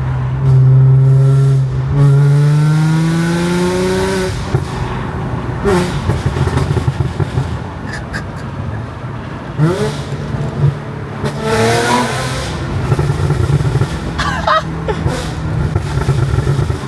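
Audi B8 S4's supercharged 3.0 V6 through test pipes (catalytic converters removed), revving up with a rising pitch and then, when the revs drop at about four seconds in, burbling with a run of irregular crackles and pops on the overrun from its stage 1 tune while the engine settles back to a steady note.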